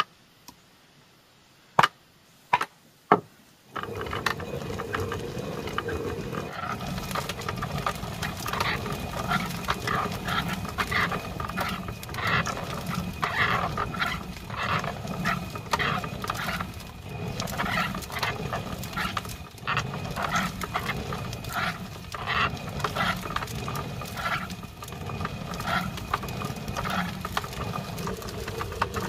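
A few sharp knocks, then from about four seconds in a continuous, busy din from a flock of ducks: many short overlapping calls and noises.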